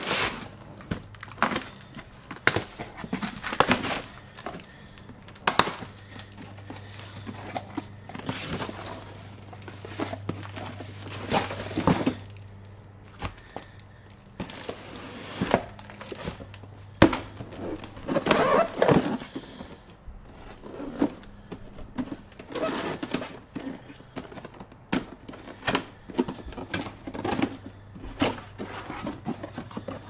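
Packaging crinkling and tearing, with irregular knocks and thumps, as a train horn kit's air compressor is unpacked and handled.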